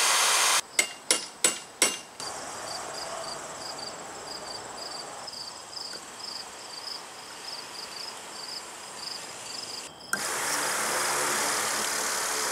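Cordless drill running, then four short sharp bursts. Crickets chirp in a steady rhythm for several seconds. About ten seconds in, a shortened electric trolling motor starts and runs steadily, its propeller spinning in the air with a whir and low hum.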